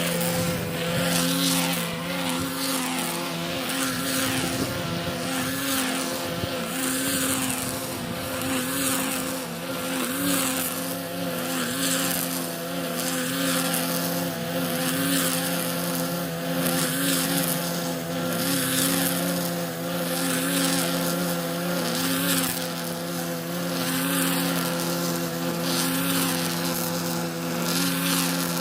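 Petrol grass-cutting machine running steadily at high speed, its engine note holding an even pitch, with a high hiss that swells about once a second as it cuts grass.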